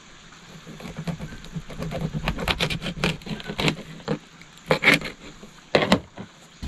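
Knife cutting through a hairtail on a plastic board: a quick run of clicks and scrapes as the blade saws through the fish, then two louder knocks near the end.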